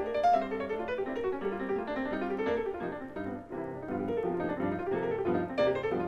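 Solo jazz piano playing quick runs of notes over low bass notes, played back from a vinyl record.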